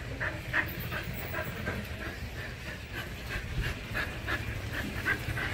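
Golden retriever panting close by, a steady rhythm of about three breaths a second.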